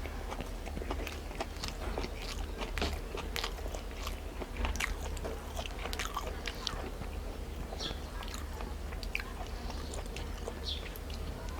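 A person chewing and eating close to the microphone: many small mouth clicks and smacks, irregular, all through. The food is rice with cooked leafy greens (shak).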